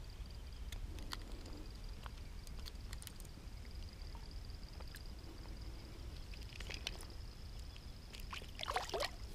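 Faint scattered clicks of pliers working a soft-plastic lure's hook out of a trahira's mouth, then a light slosh of water in the last second as the fish is lowered into the lake on a lip grip.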